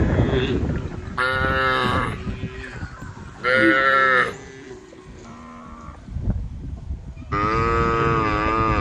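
Cows mooing: three loud drawn-out moos, the last running on past the end, and a fainter one in between. A low rough crackling noise runs underneath, strongest at the start.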